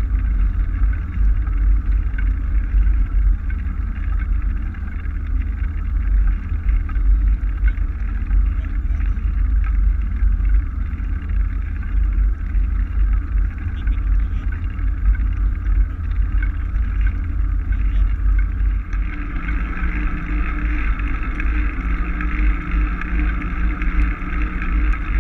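Wind buffeting the microphone as a steady low rumble. About two-thirds of the way through, a faint steady low hum joins it.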